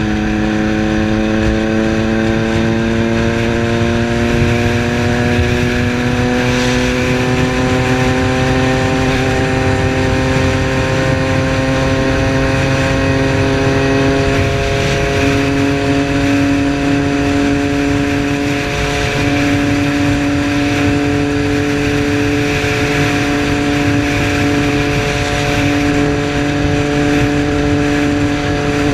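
Triumph Street Triple's three-cylinder engine running while the motorcycle is ridden: its note climbs slowly for the first half as the bike gathers speed, then holds steady at a cruise, over a steady rush of noise.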